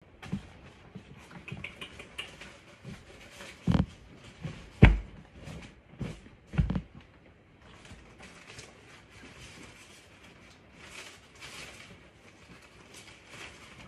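A hedgehog snuffling and sniffing at a wooden floor in short, irregular rustly sniffs, with a few dull thumps around the middle, the loudest about five seconds in.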